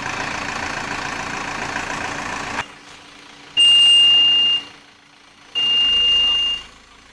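A heavy machine's engine runs steadily and cuts off abruptly about two and a half seconds in. It is followed by a backup alarm's loud, steady, single-pitch beeps, each about a second long and about two seconds apart.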